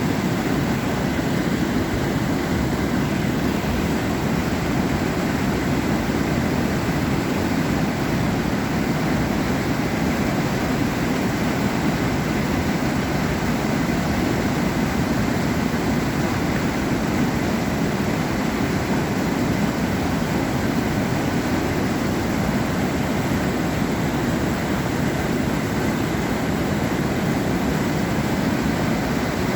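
Water rushing over a dam, a loud, steady deep roar with no let-up.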